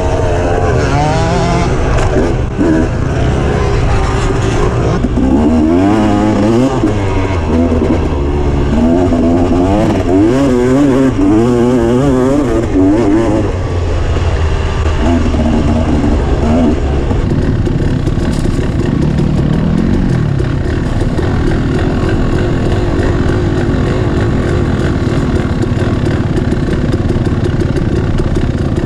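Dirt bike engine revving up and down over and over as it is ridden, its pitch rising and falling about once a second, then holding steadier in the second half.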